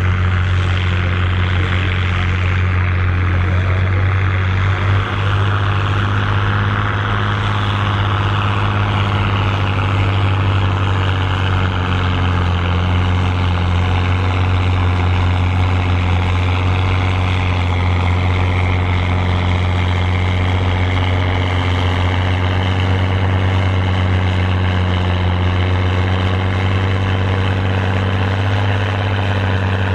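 Massey Ferguson 7495 tractor's six-cylinder diesel engine working hard at high, steady revs under full load, dragging a weight-transfer pulling sled. A loud continuous drone with a brief dip about five seconds in.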